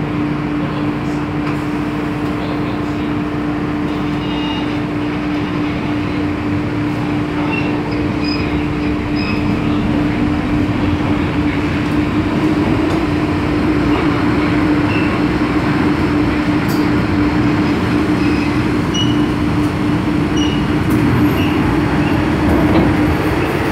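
Interior running noise of an MTR M-Train electric multiple unit: a steady motor hum over rumbling wheel-on-rail noise that grows louder about halfway through as the train gets under way from the station.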